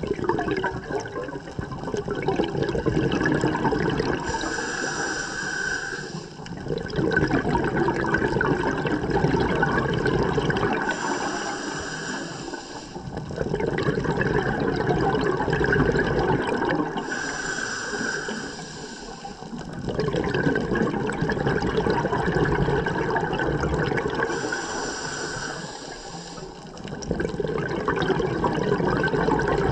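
Scuba diver breathing through a regulator underwater, in a steady cycle of about four breaths. Each is a long rush of exhaled bubbles followed by a shorter hissing inhale.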